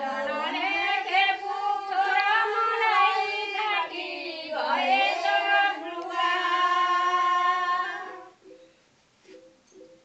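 A group of women singing together in unison, a Nepali sangini folk song, with long held notes that slide between pitches. The singing stops about eight seconds in.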